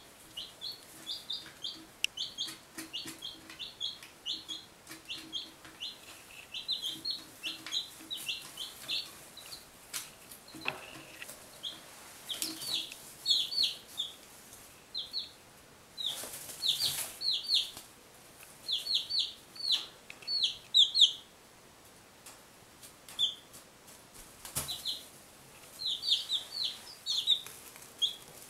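One-week-old chicks (Buff Orpingtons, a Barred Rock and a Golden Laced Wyandotte) peeping: short, high-pitched peeps in quick runs, with a quiet spell about three quarters of the way through.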